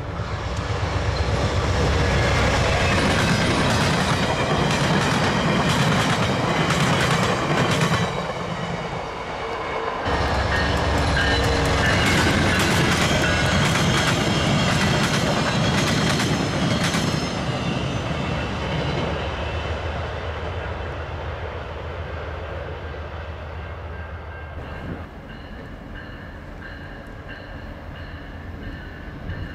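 VIA Rail passenger train passing at speed: a loud rush of wheels with rapid clicking over the rail joints, easing briefly about eight seconds in and then fading away as the train goes by.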